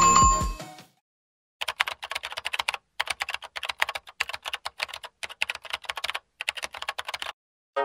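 Rapid clicking of computer keyboard typing, in quick runs broken by short pauses, starting about a second and a half in. Before that, the end of a music track dies away within the first second.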